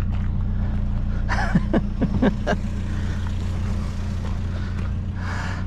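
A vehicle engine idling with a steady low hum. A brief run of short, sharp clicks and squeaks comes about one and a half to two and a half seconds in.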